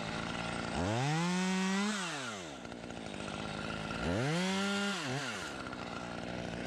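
Two-stroke chainsaw running at idle and throttled up twice, each rev rising in pitch, holding about a second and falling back to idle.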